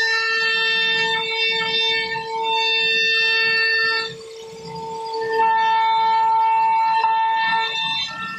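CNC router spindle whining at a steady pitch while its bit carves a relief pattern into a wooden board. The higher cutting whine drops away for about a second midway, then comes back.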